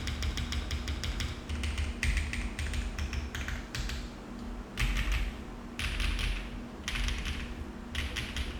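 Mode Envoy mechanical keyboard with HMX Pearl switches, FR4 plate and GMK Tiramisu keycaps being typed on. A quick run of keystrokes at first, then short bursts of keystrokes about once a second.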